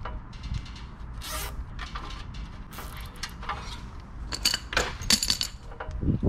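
Metallic clicks and clatter of hand tools, pliers and an adjustable wrench, being handled on a stainless steel panel and set down on stone paving, over a steady low rumble. The sharpest run of clicks comes about four to five seconds in.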